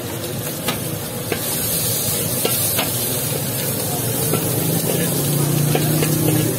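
Vegetables sizzling in a large steel wok while a perforated metal spatula scrapes and stirs them, with sharp metal clinks against the wok every second or so. A low hum swells in the last couple of seconds.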